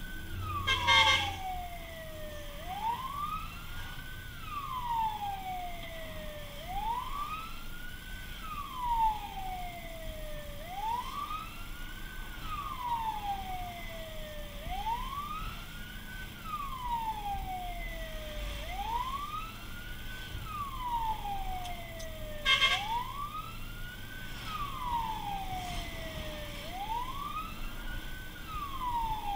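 Fire truck siren wailing, heard from inside the cab: each cycle rises quickly and falls away more slowly, about every four seconds. Two short, loud, higher blasts cut in, about a second in and again near the end, over the low rumble of the truck.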